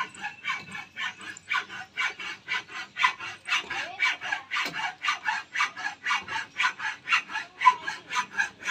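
Hacksaw sawing back and forth through the edge of a rusty metal gate, a steady rasp at about four to five strokes a second.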